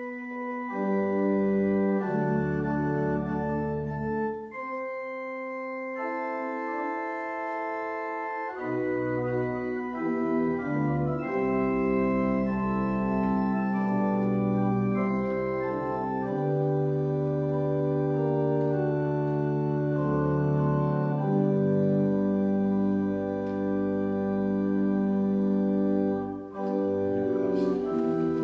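Organ playing slow, sustained chords over low bass notes, the chords changing every second or two; the music drops away briefly near the end before going on.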